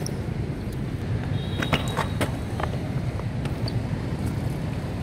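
Steady low rumble of city traffic with wind on the microphone, and a few sharp clicks about two seconds in.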